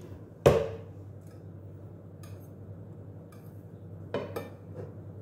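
A hard knock with a short ringing tail about half a second in, then a few lighter clinks around four seconds in: a squeeze bottle and crockery being set down and handled on a table.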